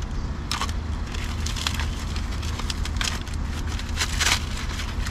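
Plastic packaging wrap crinkling and tearing as a wrapped part is ripped open by hand: several short rustling tears, the longest about four seconds in, over a steady low background rumble.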